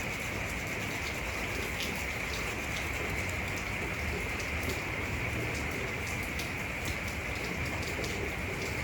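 Steady rain falling: a continuous even hiss with scattered drop ticks.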